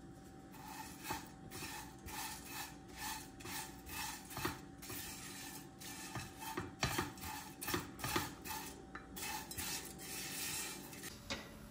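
A kitchen utensil stirring and scraping in a pot or pan, with irregular clinks about two or three a second that stop shortly before the end.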